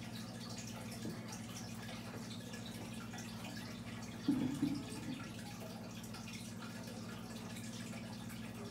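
A steady low hum throughout, with faint scattered ticks above it. About four seconds in there is a short, muffled noise close to the microphone, peaking twice.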